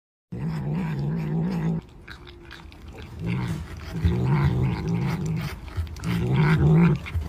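A cat growling low and wavering, in three long stretches with short breaks between them.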